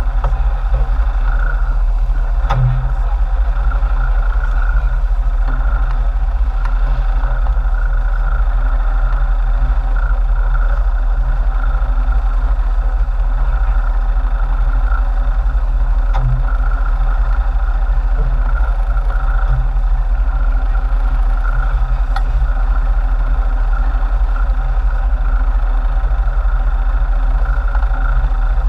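Sportfishing boat's engine running steadily, heard from on board as a constant low hum, with a few brief knocks.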